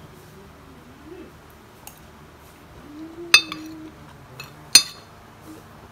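Eating utensils clinking against dishes: a faint clink, then two sharp, ringing clinks about a second and a half apart, the first the loudest.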